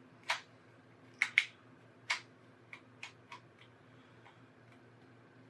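Small, sharp, irregular clicks and taps of a tri-wing screwdriver working the screws out of a Nintendo Switch Joy-Con's plastic back shell, about ten in all. The loudest two come close together about a second and a quarter in.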